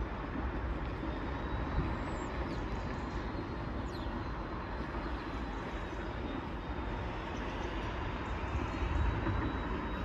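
Outdoor ambience: a steady low rumble under a wash of noise, swelling briefly about nine seconds in, with a couple of faint high chirps that fall in pitch around two and four seconds in.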